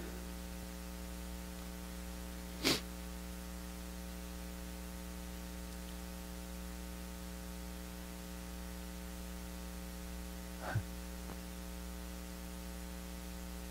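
Steady electrical mains hum with a buzz of evenly spaced overtones in the sound system, during a pause in speech. A brief sharp noise comes about two and a half seconds in, and a fainter one near the end.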